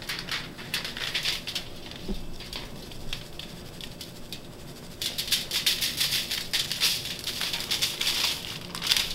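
Aluminium foil crinkling and rustling under hands rubbing dry seasoning into a whole trout, with the rattle and patter of a spice shaker shaken over the fish. The small clicks and rustles are sparse at first and grow busier about halfway through.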